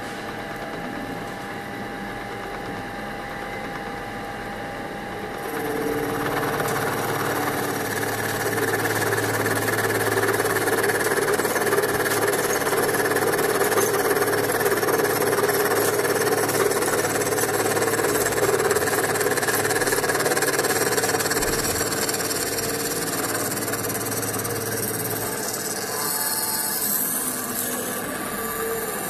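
CNC milling machine running, its spindle and cutter milling lead: a steady mechanical whir that grows louder about five seconds in and changes tone near the end.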